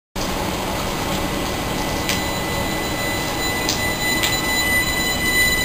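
Southern Class 377 Electrostar electric train moving off, its traction equipment giving a steady high electrical whine over wheel and rail noise, with three sharp clicks in the middle.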